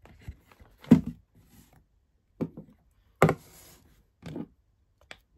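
Unboxing handling noises: about five separate knocks and thumps as the packaging box and the timer are picked up and moved on a table, the two loudest about a second in and just after three seconds.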